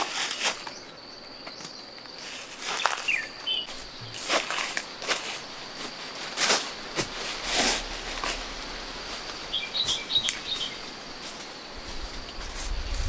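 Outdoor ambience: a steady high insect drone with a few short bird chirps, mixed with scattered sharp clicks and rustling noises.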